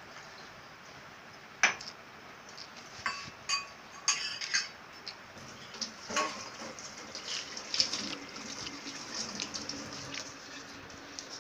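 A toddler biting and chewing a raw apple close to the microphone: irregular sharp clicks and wet smacking, the loudest about two seconds in.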